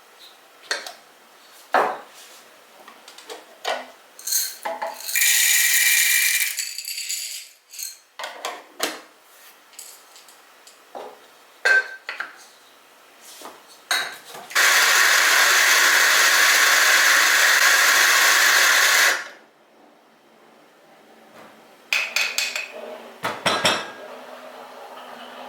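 Kitchen handling sounds, clicks and knocks of dishes and utensils, with a small electric kitchen appliance running twice: briefly about five seconds in, then steadily for about four and a half seconds past the middle.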